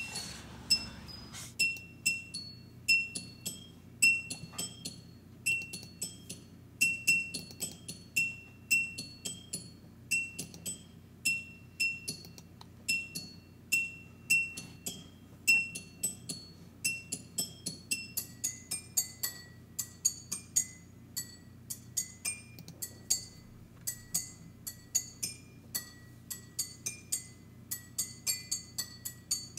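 Background music of bright, tinkling bell-like notes and clicky percussion in a steady rhythm; a high note repeats about twice a second, and a second, lower note joins about two-thirds of the way through.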